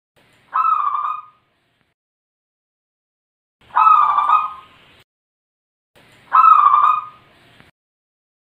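Zebra dove (perkutut) cooing: three short, wavering coo phrases, each under a second long, about three seconds apart.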